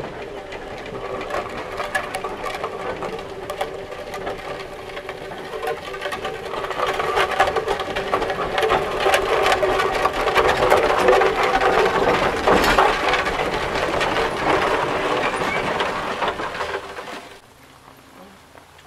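Foster steam traction engine No. 3452 on the move: a rapid, even mechanical clatter from its engine and gearing over a steady tone. It grows louder as the engine nears and passes close, then breaks off sharply near the end.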